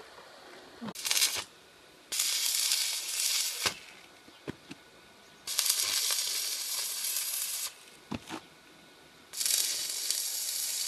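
Stick (arc) welding on a steel LPG tank, the arc crackling and sizzling in four runs: a short one about a second in, then three of about one and a half to two seconds. Short clicks fall in the gaps between the runs.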